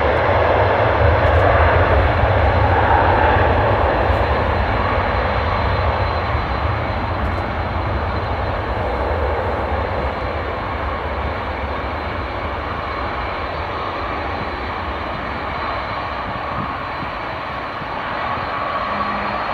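Steady engine drone with a rushing noise, slowly getting quieter, and a faint rising whine near the end.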